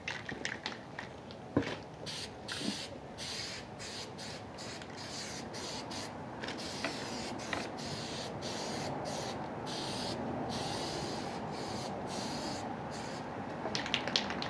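Aerosol spray paint can hissing in a run of short bursts with brief breaks between them, with a single knock about a second and a half in.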